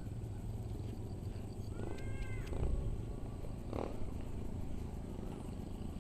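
An animal calls once about two seconds in, a short call rising then falling in pitch, with a brief sharper sound about a second later, over a steady low rumble.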